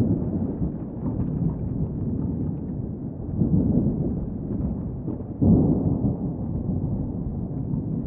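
Thunderstorm: low rolling thunder over steady rain, swelling and easing, with a sudden louder crack of thunder about five and a half seconds in that slowly dies away.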